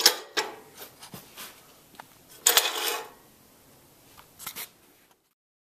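Light metal clicks and knocks from a miter gauge being handled in its bracket on a bandsaw stand, with one short scraping slide about two and a half seconds in and a couple of small clicks near the end.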